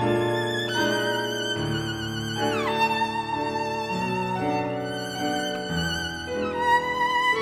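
Background music: a solo violin playing a slow melody with vibrato over lower held accompaniment notes, sliding down from one note to the next about two and a half seconds in.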